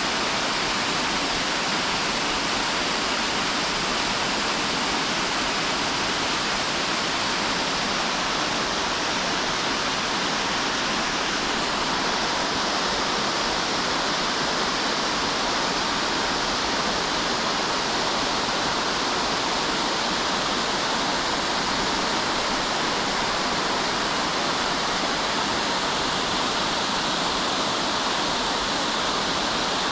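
A waterfall swollen with spring meltwater rushing in a steady, even murmur.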